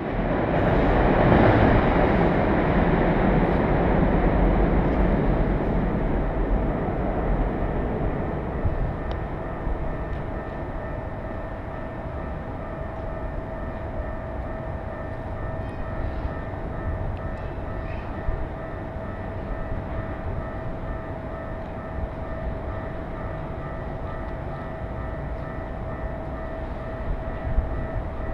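A train rumbling on its tracks, loud at first and fading away over the first several seconds, then a steady railway-side background with a constant hum.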